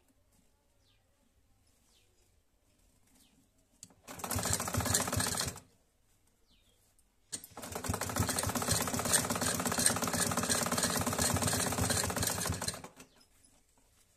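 Black Modern-brand domestic sewing machine stitching in two runs: a short burst about four seconds in, then a longer steady run of about five and a half seconds. It is sewing a temporary seam at stitch length 5, because the seam will have to be unpicked later.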